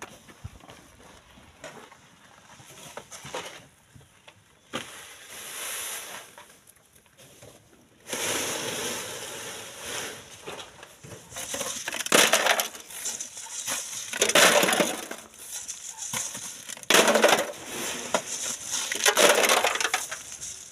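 Sand and gravel being tipped and shovelled: a gritty pour starting about a third of the way in, then four loud scraping shovel scoops into coarse sand and gravel, roughly two and a half seconds apart.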